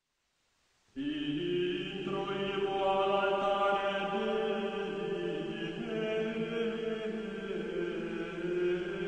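Background music of sung chant: voices holding long, slowly changing notes, coming in abruptly about a second in.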